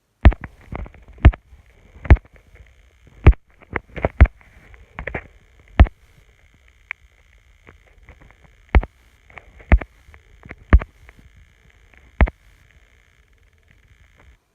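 Firecrackers going off: a dozen or more sharp bangs at irregular intervals, over a faint steady high hiss.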